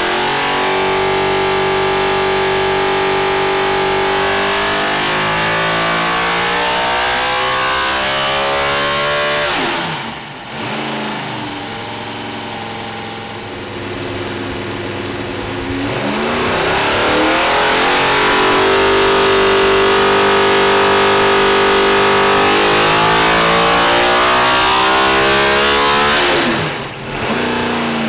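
Chevrolet R07 NASCAR V8, naturally aspirated on two Holley four-barrel carburetors and running through open racing headers, on an engine dyno. It holds a steady high speed, climbs in revs and drops sharply back about ten seconds in. It runs lower for several seconds, is brought back up around the middle and held steady, then drops again near the end.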